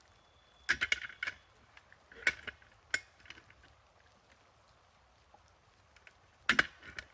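A few clusters of sharp clanks and knocks: tools and blocks being handled and shifted while a heavy timber beam is levered up. The loudest cluster comes near the end.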